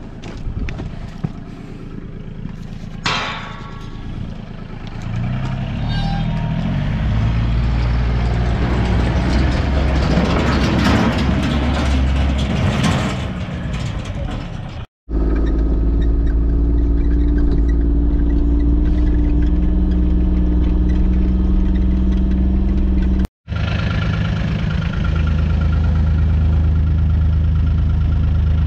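A vehicle engine running steadily, picking up revs about five seconds in and then holding a steady drone. The sound cuts out abruptly twice.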